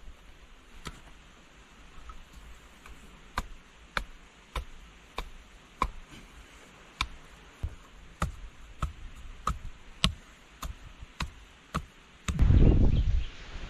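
A series of sharp knocks, sparse at first and then coming steadily about once every half to two-thirds of a second, like a hand tool striking repeatedly. A loud low rumble lasts about a second near the end.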